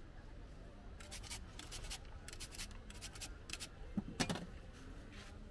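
Metal hand grater rasping in about six quick scraping strokes as food is grated over a plate. This is followed by a sharper knock and clatter about four seconds in.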